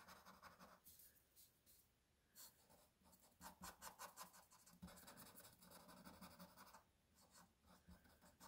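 Very faint scratching of a marker tip on paper, drawing in short quick strokes, with brief pauses about a second in and again near the end.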